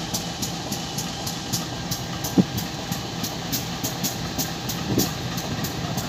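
CC 201 diesel-electric locomotive with its GE 7FDL V8 diesel engine idling close by: a steady engine rumble, with a brief low knock about two and a half seconds in and another near five seconds, over a faint high ticking about three times a second.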